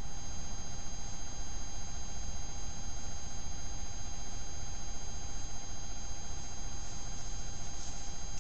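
Trail camera's own recording noise: a steady hiss with a low rumble and several thin, steady electronic whine tones.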